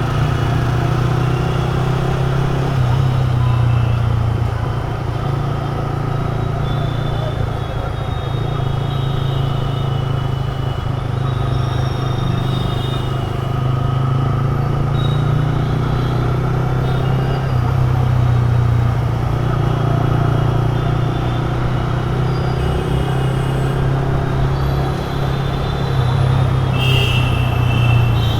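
Motorcycle riding through city traffic: a steady loud engine and road rumble, with short horn honks from surrounding vehicles at times, the clearest near the end.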